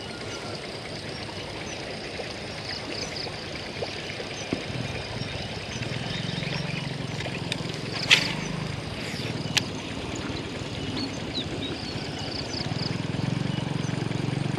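A vehicle engine running steadily, its low hum growing louder from about four seconds in. A sharp tap comes about eight seconds in, and a fainter one about a second and a half later.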